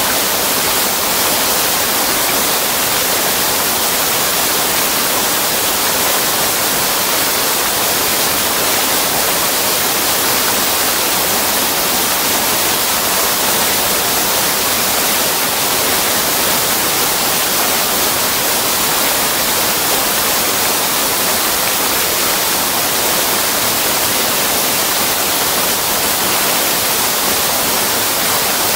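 Floodwater from a brook swollen by heavy rain pouring over a weir and churning in the pool below: a loud, steady rush of water.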